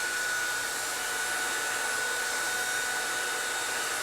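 Panasonic EH-NA65-K nanoe hairdryer running on its low speed and hot setting with the standard nozzle: a steady rush of air with a thin, high motor whine.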